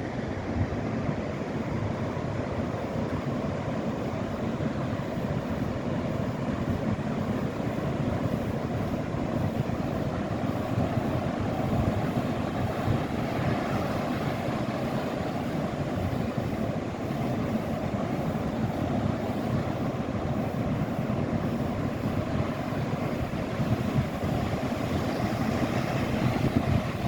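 Wind buffeting the microphone over the steady wash of ocean surf, a continuous low rumbling noise with no distinct events.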